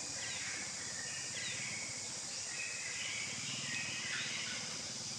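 Outdoor ambience: a steady high hiss with scattered short bird chirps.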